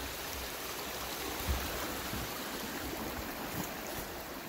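Small forest stream running: a steady rush of water, with a soft low thump about one and a half seconds in.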